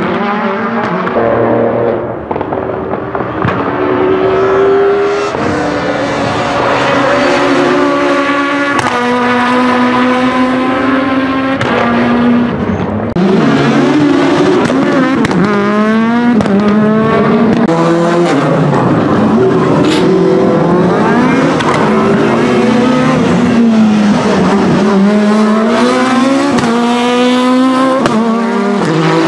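Renault Clio Super1600 rally car's high-revving 1.6-litre four-cylinder engine, driven hard. Its note climbs and drops again and again as it accelerates, shifts and lifts for the corners.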